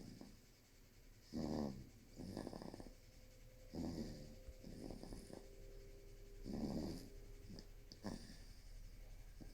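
A three-month-old baby snoring in its sleep: about five faint snores at uneven intervals.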